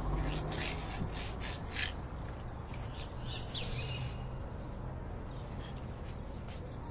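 Aerosol spray-paint can hissing in several short bursts during the first few seconds as a wall is painted, over steady low street noise, with a few faint bird chirps midway.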